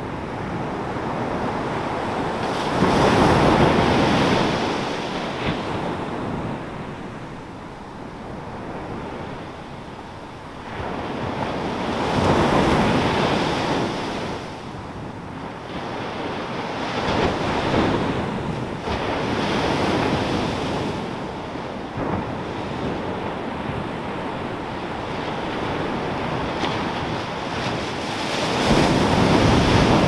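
Ocean surf breaking on a sandy beach: waves crash and wash up the shore in swells of rushing noise that rise and fade, the biggest about three seconds in, around twelve seconds, and near the end.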